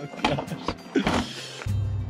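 Hollow knocks and scraping of a plastic storage-tote lid being lifted off and set down, over background music. A low steady hum comes in about a second and a half in.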